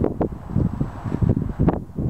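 Wind buffeting the camera microphone: an uneven low rumble that rises and falls in gusts.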